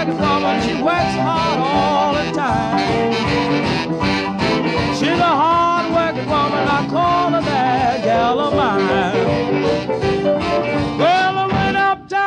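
Background music with a steady beat and a sliding, bending lead melody.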